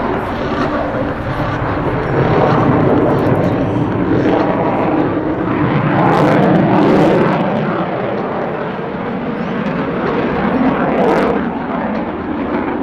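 F-22 Raptor's twin F119 turbofan engines in loud jet noise as it manoeuvres overhead. The noise swells about two seconds in, peaks around the middle and eases off a little toward the end.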